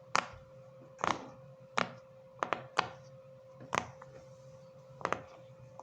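Silicone pop-it fidget toy having its bubbles pressed through, a sharp pop each time: about eight pops at uneven intervals, two of them in quick succession near the middle.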